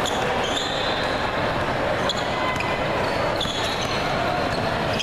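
Basketball game sounds in a large hall: a ball bouncing and sneakers squeaking briefly on the hardwood court a few times, over a steady din of voices.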